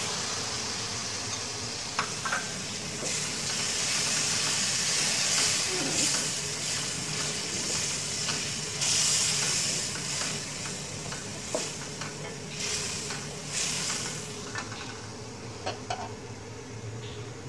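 Ground tomato sizzling in hot oil with fried onions and spices in a karahi, stirred with a wooden spatula that scrapes and taps the pan. The sizzle swells with the stirring strokes and dies down near the end as the tomato cooks in.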